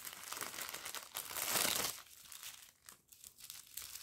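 Small plastic sachets of round diamond-painting drills crinkling as they are handled, loudest for about a second midway.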